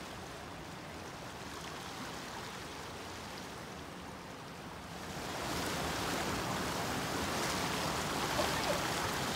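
Rushing water of a fast-flowing stream: a steady wash that grows louder a little past halfway through.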